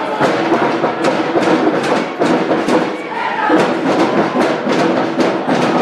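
Music with a quick, steady drumbeat.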